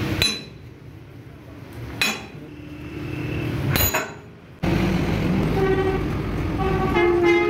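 Three sharp metallic clanks about two seconds apart, then, after an abrupt jump in level about halfway, road traffic noise with vehicle horns honking, loudest near the end.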